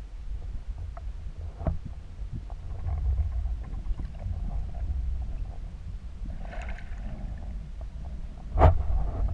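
Muffled underwater noise heard through a GoPro's waterproof housing: a low rumble of moving water with scattered light clicks and knocks. A sharp knock about eight and a half seconds in is the loudest sound.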